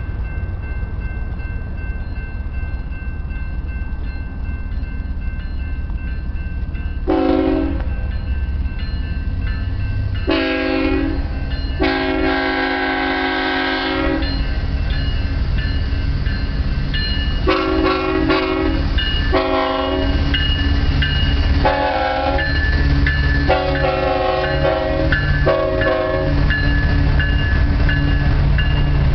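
BNSF diesel freight locomotives sound their multi-chime air horn in a string of blasts of varied length, including a long one about twelve seconds in: a friendly horn salute. Under the horn the locomotives' engines rumble steadily, growing louder near the end as the lead units pass.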